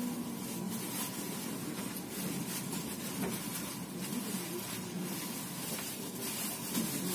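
Passenger train pulling out of a station, heard from inside the carriage: a steady running noise with a hiss.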